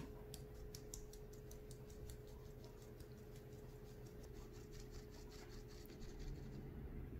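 Powdered sugar being dusted from a sifter over pancakes: a quick run of light, crisp taps, about five a second, that stops near the end.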